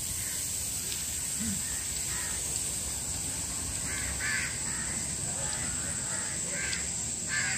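Crows cawing several times, a short call at a time, about two seconds in, around four seconds and near the end, over steady background noise.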